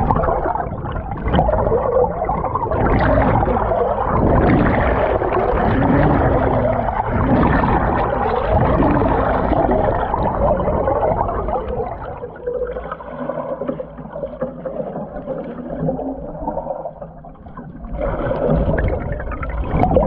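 Canoe paddle strokes heard from underwater: a muffled, continuous rush and gurgle of water and air bubbles around the blade. It dips for a few seconds past the middle and swells again near the end.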